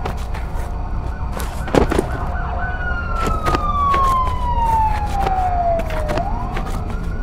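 Siren wailing: one long slow fall in pitch, then starting to rise again near the end, over a steady low rumble and scattered sharp clicks.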